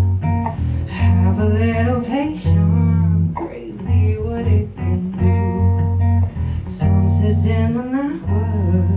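Acoustic guitar music with deep sustained bass notes under a melody that slides up and down in pitch.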